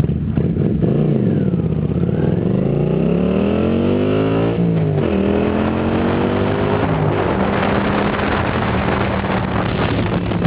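Kawasaki Vulcan 400 V-twin exhaust through 2-into-2 trumpet mufflers fitted with Motor Stage inner silencers with an 8 mm bore. The engine revs up briefly about a second in, then climbs for about two seconds before the revs drop suddenly, and settles to a steady run.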